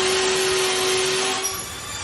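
Handheld electric drill running steadily with a constant whine as its bit bores into the plastic case of a 12 V battery beside the terminal, then stopping about a second and a half in.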